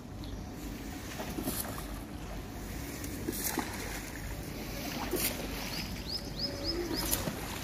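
Steady low outdoor rumble and hiss, with a small bird chirping a quick series of five short falling notes about six seconds in.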